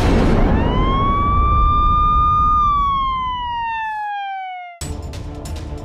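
Intro sound effect: a loud low boom under a single siren wail that rises, holds, then slowly falls in pitch. It is cut off near the end by theme music with sharp, regular percussion hits.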